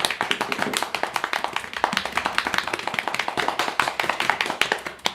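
Hands clapping and slapping fast and hard in a dense, uneven stream of claps and slaps: body percussion imitating the strong sound of a waterfall.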